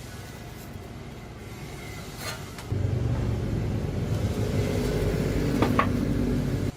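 A machine running steadily with a low rumble and hum. It turns abruptly louder about three seconds in and cuts off sharply near the end, with a few short metallic clicks.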